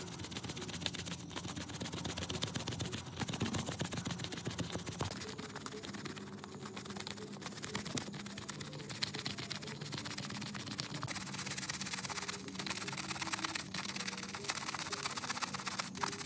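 Stiff brush scrubbing a wet, soapy shag rug: a continuous run of fast, scratchy bristle strokes through the foam.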